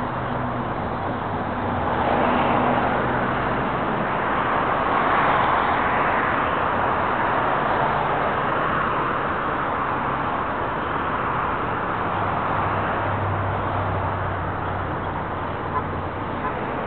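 Road traffic noise from cars on a busy street, a steady rush that swells as vehicles pass a couple of seconds in, with a faint low engine hum underneath.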